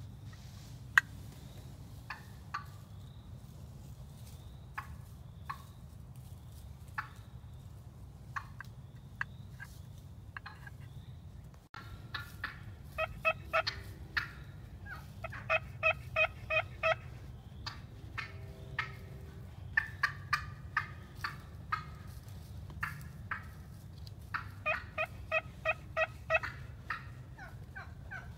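Turkey yelping: a few scattered single clucks at first, then, after about twelve seconds, four runs of quick, evenly spaced yelps. A steady low hum lies underneath.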